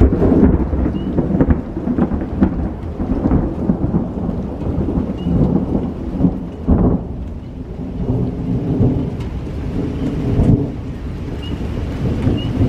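Thunder rumbling continuously during a thunderstorm, with rain falling, and a sharper clap about seven seconds in.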